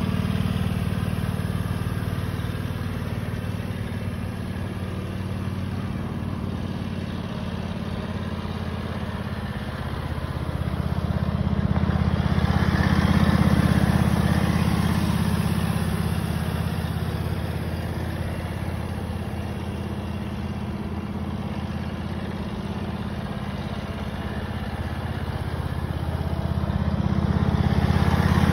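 John Deere Gator utility vehicle's engine running steadily as it tows a metal nail drag through loose infield dirt, with the hiss of the drag scraping the surface. The sound swells about halfway through and again near the end as the vehicle passes close.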